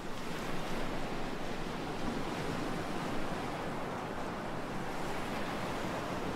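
Steady, even rushing ambient noise with no distinct events.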